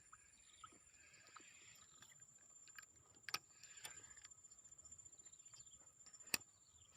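Faint rustling and a few sharp clicks, two of them louder, over near silence with a steady high-pitched tone.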